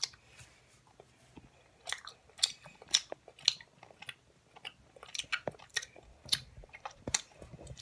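A person chewing a sour, chewy candy close to the microphone: irregular wet smacking clicks of the mouth and teeth.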